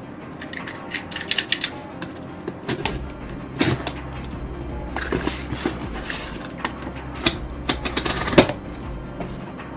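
Box cutter opening a cardboard package: a quick run of clicks about a second in, then scattered cuts, scrapes and knocks of cardboard being handled.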